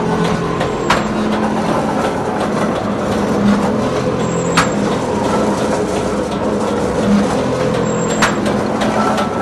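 Glass mosaic machine running steadily with a low hum, punctuated three times by a short sharp click-hiss, evenly spaced about every three and a half seconds.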